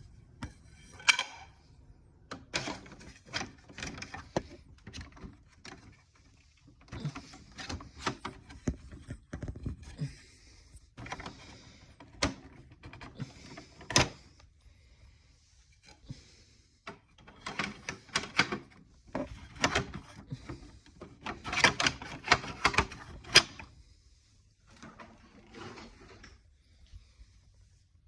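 Irregular knocks, clacks and rubbing, as of objects being handled, in bursts with short quiet gaps and a busier stretch late on; no motor is running.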